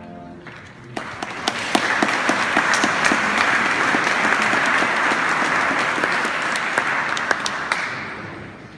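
Audience applauding: the clapping starts about a second in, holds steady and dies away near the end.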